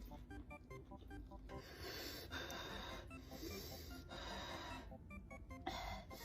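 Background music of short, light notes, with four breathy mouth noises from eating, each lasting about half a second to a second.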